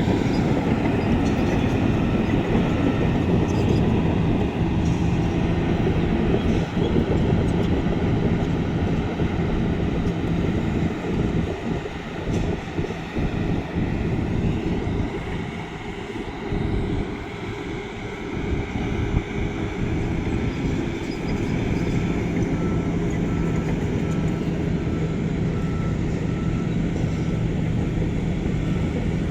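Heavy construction machinery with a diesel engine running steadily, easing off for a few seconds in the middle. A reversing alarm beeps at the start and again through the last part.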